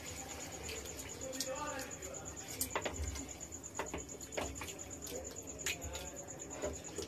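Spatula stirring chicken pieces through a thick curd and coconut milk sauce in a frying pan, with a handful of short scrapes and clicks of the spatula against the pan.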